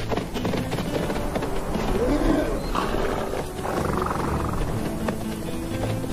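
Namib Desert horses calling, with a couple of rough, pitched calls near the middle, over background music.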